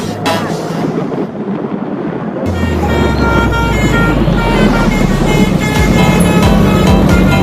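Telolet basuri musical bus horn playing a tune of held, stepping notes, starting about two and a half seconds in over a loud low drone. Before the horn starts there is a rushing noise.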